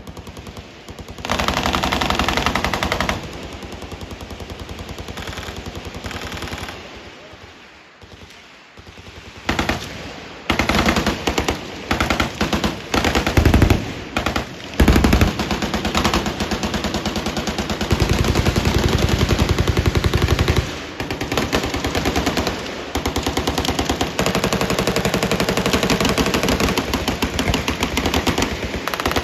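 Several machine guns firing full-auto at once, long overlapping strings of rapid shots. The fire eases to a brief lull about a third of the way through, then builds back into heavy, nearly continuous firing.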